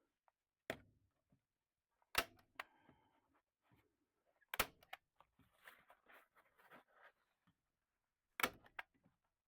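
A hand staple gun firing about four times at irregular intervals, fastening windproof membrane fabric over insulation, with the fabric rustling between shots.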